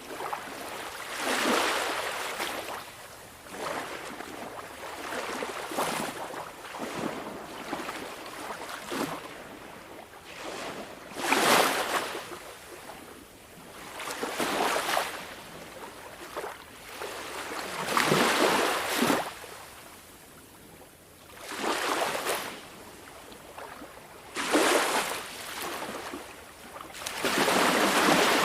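Small waves of a calm sea breaking and washing onto the shore, one surge every three to four seconds, each swelling and then falling away.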